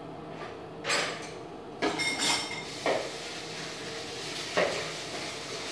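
Kitchenware being handled at the sink: four or five separate clatters and knocks of pots and dishes. One, about two seconds in, rings on briefly.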